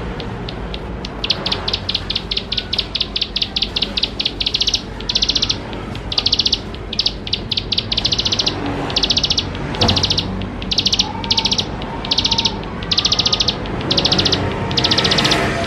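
A ciblek sawah prinia singing a long run of rapid, high, buzzy trilled phrases, each under half a second long, repeated with short gaps. The song begins about a second in.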